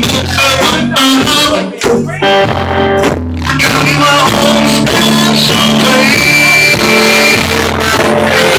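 Live rock band playing loudly, with electric guitar and bass.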